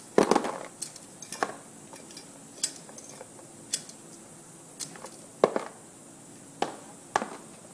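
Loose brake-lining rivets clicking and clinking against the metal of a riveting machine's slotted rivet feed wheel as they are pushed by hand through the slot, in about nine irregular single clicks.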